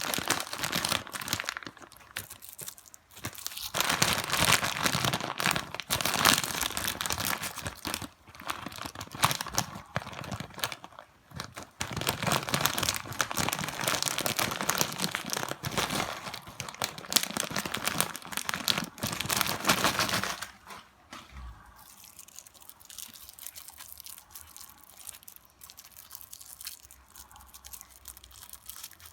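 Plastic snack wrappers crinkling and being torn open, in long bursts of handling. The handling goes much quieter about two-thirds of the way through.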